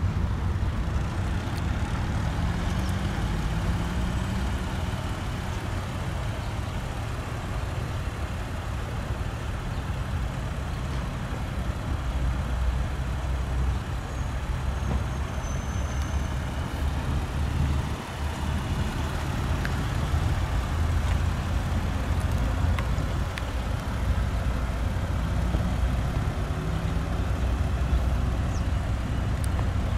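Steady low rumble of motor-vehicle traffic, with an engine rising in pitch a few seconds in and again near the end.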